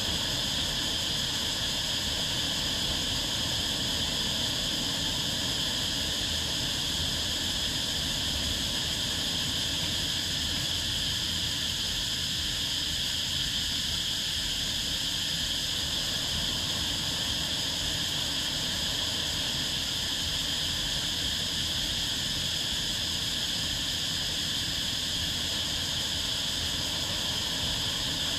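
Gentle surf breaking steadily on a sandy beach, a constant wash with a steady high hiss over it.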